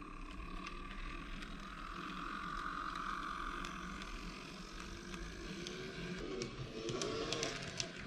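N-scale Minitrix class 225 model diesel locomotive running past, its built-in sound decoder playing a diesel engine sound over the whir of its motor and wheels on the track, with scattered clicks.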